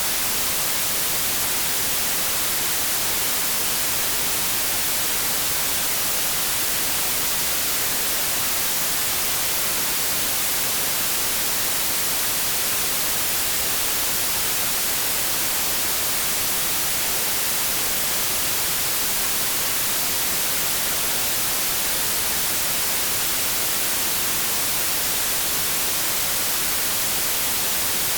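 Continuous synthetic white noise: a steady, even hiss, brightest in the highs, with no change in level.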